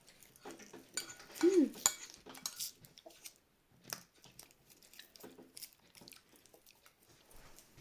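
Spoon clinking and scraping against a bowl of binignit in scattered light taps while someone eats, with a brief vocal sound about a second and a half in.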